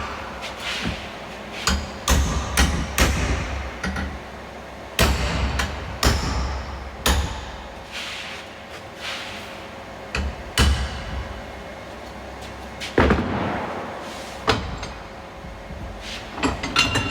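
Hammer blows on steel: about a dozen sharp strikes at uneven intervals, each with a short metallic ring, knocking the freshly welded crevice scraper head square.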